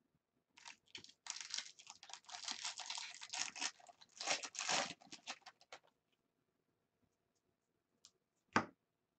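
Foil wrapper of a Bowman Draft Jumbo trading-card pack being torn open and crinkled by hand for about five seconds. Near the end comes a single sharp tap.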